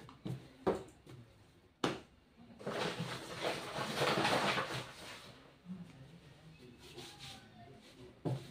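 Bread dough kneaded by hand on a floured board: a few short thumps and knocks as the dough is pressed and turned, with a few seconds of loud rustling and scraping in the middle.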